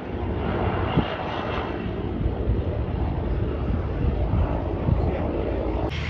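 Small plane's engine running loud and steady, with a rough low rumble. The sound breaks off abruptly just before the end.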